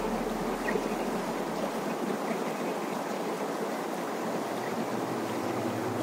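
River water rushing over a low rock ledge in a small cascade, a steady, even rush.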